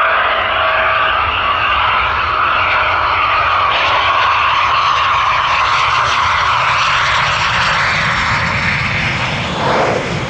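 Eurofighter Typhoon FGR4 jet, its twin EJ200 turbofans running loud and steady, with a whine that falls in pitch and eases off slightly near the end.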